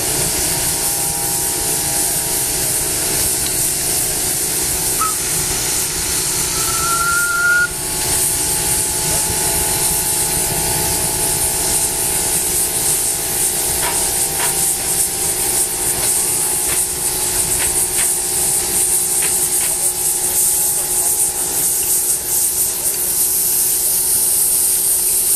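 Live-steam scale model of a Monon Mountain-type (4-8-2) locomotive hissing steadily as steam escapes from the engine.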